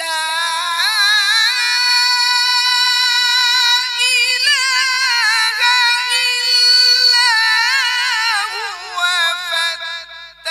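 A male reciter chanting the Quran in a high register, one long melodic phrase of held, wavering ornamented notes that sets in suddenly and eases off near the end.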